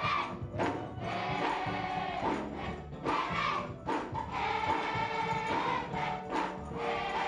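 Children's gospel choir singing a Christmas song over a steady beat.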